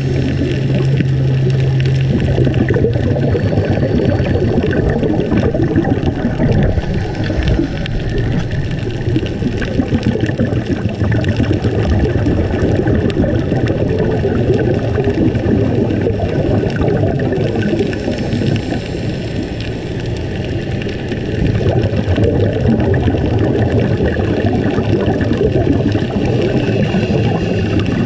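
Underwater sound picked up by a diving camera: a steady, dense crackling hiss of water, with a low hum in the first few seconds and again through the middle.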